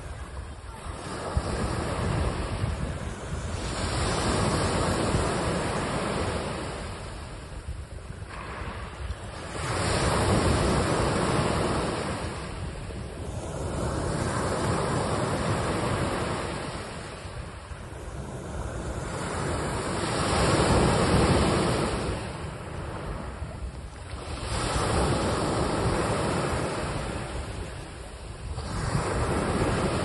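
Small sea waves breaking and washing up a sandy beach, each surge of surf swelling and then fading back about every four to five seconds.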